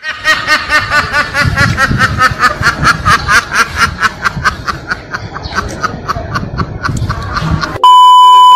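A crowd of ducks quacking rapidly and continuously, about four or five calls a second. Near the end the quacking cuts off and a loud steady test-card beep with static takes over.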